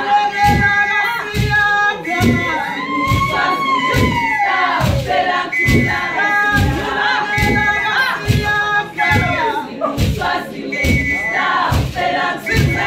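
A group of women singing a traditional Swazi song together, voices holding and sliding notes over a steady thumping beat of about two beats a second.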